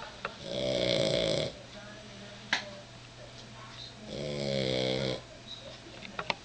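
Boston Terrier snoring, sounding much like a human snorer: two drawn-out snores about three and a half seconds apart, each lasting about a second. A single sharp click falls between them.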